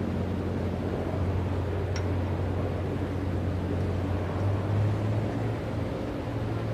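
A steady, low engine or machinery hum, with one faint click about two seconds in.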